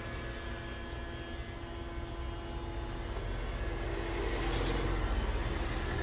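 Electric hair clipper running with a steady hum, growing louder with some added buzz and hiss about four to five seconds in as it works through the child's hair.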